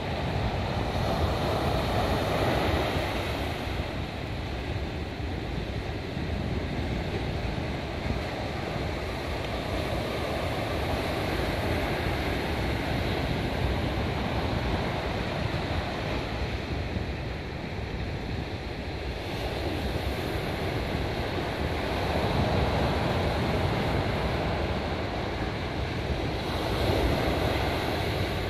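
Pacific surf breaking on a sandy beach: a continuous rush of waves that swells and eases every several seconds as each set breaks.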